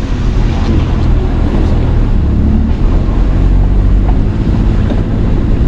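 Vehicle engine running and tyres rumbling over a rough, rutted dirt track, heard from inside the cab as a loud, steady, low rumble.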